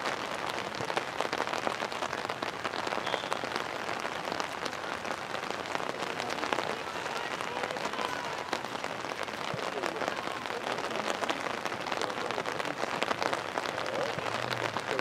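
Steady rain: a constant hiss with a dense, irregular patter of small drops hitting a surface close by. Faint distant voices are heard now and then.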